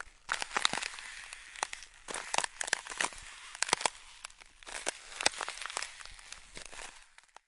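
Ice crunching and cracking underfoot: sharp, irregular cracks and crackles in clusters as footsteps break through ice. It dies away and stops near the end.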